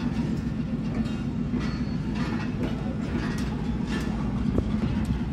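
Passenger train coaches rolling slowly past, their steel wheels clicking irregularly over rail joints above a steady low rumble.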